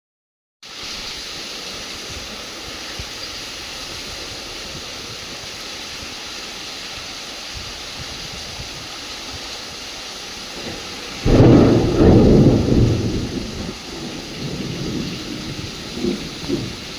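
Steady monsoon rain falling. About eleven seconds in, a loud clap of thunder breaks and rolls on for a few seconds, and two fainter rumbles follow near the end.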